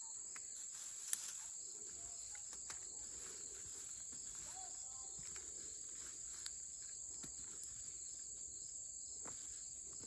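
Steady high-pitched insect chorus, with soft rustling and scraping of a hand digging potatoes out of loose soil and one sharp click about a second in.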